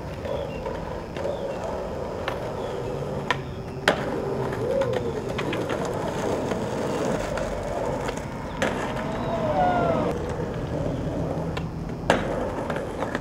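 Skateboard wheels rolling over rough, cracked asphalt, with a few sharp clacks of the board, the loudest about four seconds in and near the end.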